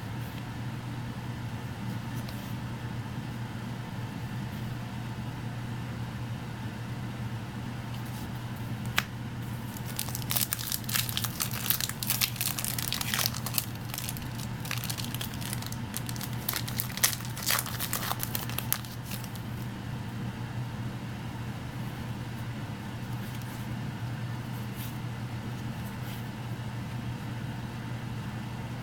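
Foil trading-card booster pack being torn open and crinkled: a run of crackles lasting about ten seconds in the middle, over a steady low hum.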